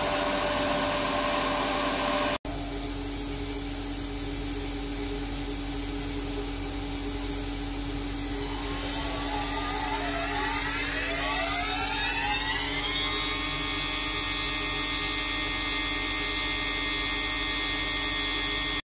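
Studer S25 CNC grinding machine running with a steady mechanical hum. From about eight seconds in, a spindle speeds up with a rising whine that levels off about five seconds later into a steady high whine.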